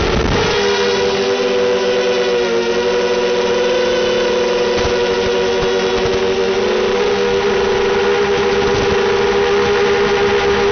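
Multirotor drone's electric motors and propellers whining steadily from close by, two slightly different pitches sounding together, after a brief noisy rush at the start.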